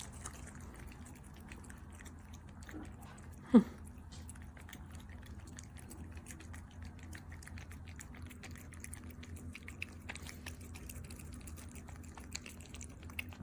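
Two Persian cats licking lickable treat paste from squeeze tubes: a quick, faint run of small wet licking clicks over a low steady hum. About three and a half seconds in, a short squeak drops sharply in pitch.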